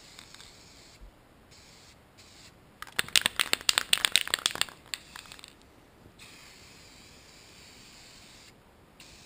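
A rapid, irregular run of sharp clicks and rattles lasting under two seconds, starting about three seconds in, over quiet room tone.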